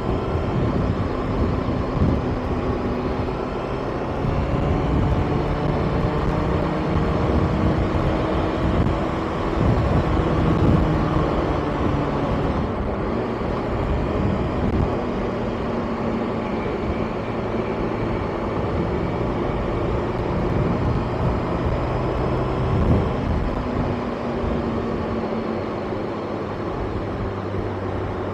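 Kawasaki ZX-6R's inline-four engine running under way, its note rising and falling as the rider changes speed, over steady wind and road noise.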